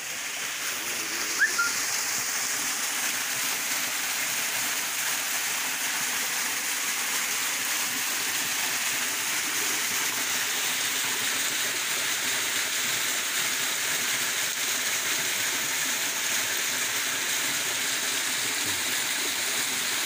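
Small waterfall pouring into a rocky pool: a steady rushing of water that grows louder over the first couple of seconds and then holds. A short high chirp stands out about a second and a half in.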